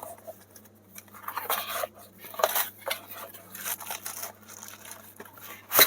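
Cardboard box being opened and its paper contents handled: irregular rustling and scraping, with one sharp knock near the end.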